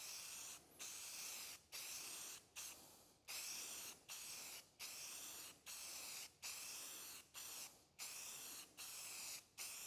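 Aerosol spray can hissing in about a dozen short bursts, a little more than one a second, with brief breaks between them as the nozzle is pressed and released.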